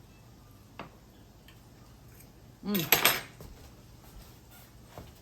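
Cutlery clinking against a plate: a light tap about a second in, then a cluster of sharp clinks about three seconds in, with a short vocal sound at the same moment.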